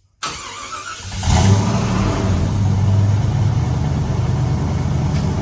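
Jeep Grand Wagoneer engine cranked on the starter for about a second, catching with a brief rev, then settling into a steady idle. Its exhaust runs through a newly fitted Dynomax Super Flow muffler, and the idle is not nearly as loud as with the old Flowmaster.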